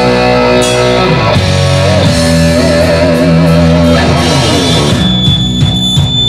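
Live rock band playing loud distorted electric guitars and bass over drums, with a long wavering held note midway. About five seconds in the drums take over with a dense, driving beat.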